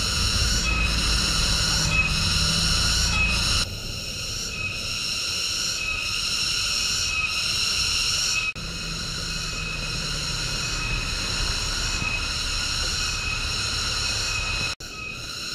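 Tropical rainforest ambience dominated by a steady, high insect chorus that pulses in a regular beat a little over once a second. There is some low rumble in the first few seconds, and the sound breaks off abruptly and changes a few times.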